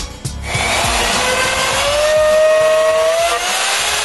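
Router in a shop-built slot mortising machine cutting mortises in hardwood, starting about half a second in with a steady high whine that rises slightly in pitch and eases back near the end.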